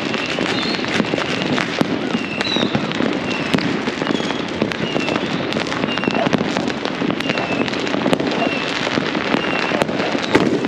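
Dense, continuous barrage of fireworks and firecrackers going off all around, many sharp pops and bangs over a constant crackling din, with a short high chirp repeating about once a second.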